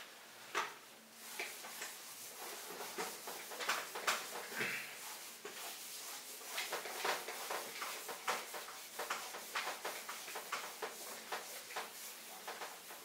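Whiteboard eraser wiping marker writing off a whiteboard in many quick, irregular strokes.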